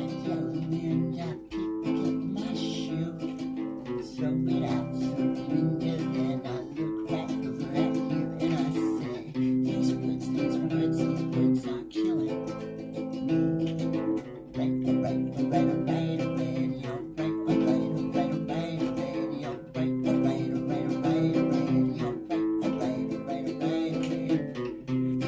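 Acoustic guitar music, strummed and plucked chords with a steady rhythm.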